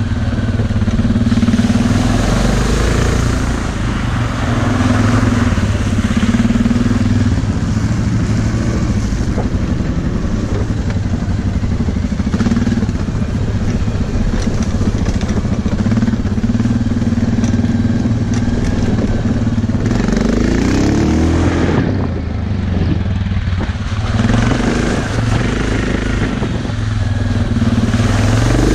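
Suzuki KingQuad 700 ATV's single-cylinder engine running under way, with a steady rushing noise over it. Its revs climb about two-thirds of the way through, ease off briefly, and climb again near the end.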